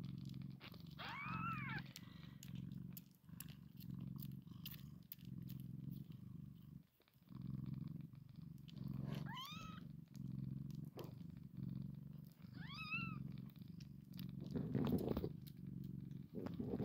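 Mother cat purring steadily in repeated breath-long pulses as her newborn kittens nurse, with three short rising-and-falling squeaks from a kitten.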